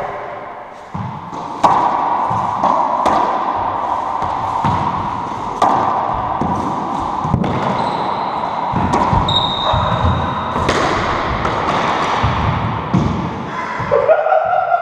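Racquetball rally: the hollow ball cracks off racquets and the court walls every second or two, each hit echoing around the enclosed court.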